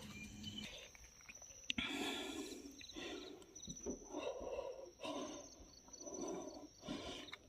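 Faint crickets chirping in a high, pulsing trill, with soft lower sounds coming and going about once a second.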